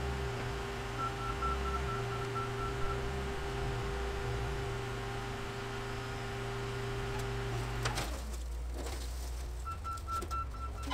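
Diesel engines of a car crusher and a wheel loader running steadily, with a loader's backup alarm beeping at the start and again near the end. About eight seconds in, a crash and scrape of sheet metal as a car body is tipped off the loader's forks onto a flattened car in the crusher.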